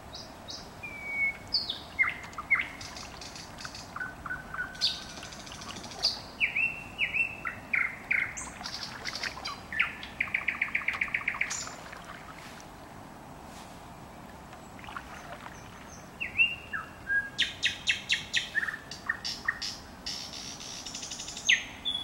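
Songbird singing in separate loud phrases of whistles, falling sweeps, clicks and fast trills, one trill running at about a dozen notes a second, with a break of about two seconds near the middle.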